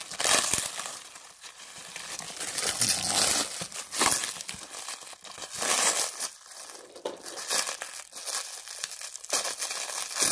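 Hands tearing and crinkling the wrapping of a bundle of comic books in irregular bursts, the wrap not giving way.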